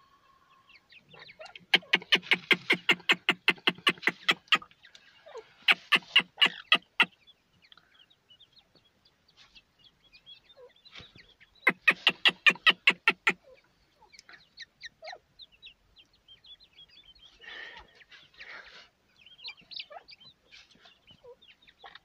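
A francolin (teetar) hen gives three runs of loud, rapid clucks, about seven a second, each run lasting one to three seconds. Her chicks' thin high peeps sound between and after the runs.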